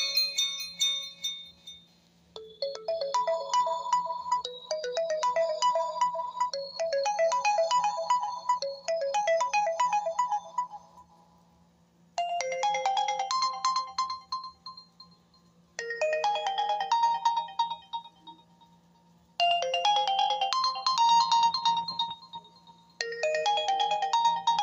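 Oppo A7 smartphone ringtones playing. One melody fades out near the start, and a second runs to about eleven seconds in. After a short gap, a brief melodic phrase repeats about every three and a half seconds, over a faint steady low hum.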